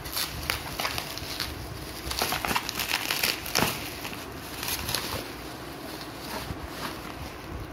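Bubble wrap crinkling and crackling as it is pulled and peeled by hand off a rolled bundle, in irregular rustles, busiest a few seconds in and thinning out toward the end.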